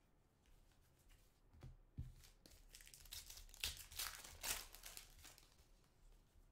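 A foil trading-card pack wrapper being torn open and crinkled in the hands: a run of crackling rustles, loudest in the middle.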